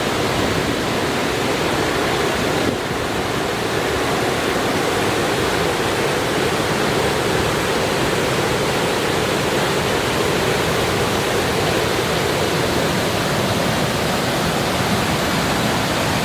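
Waterfall in flood, its heavy volume of water pouring down in a loud, steady rush.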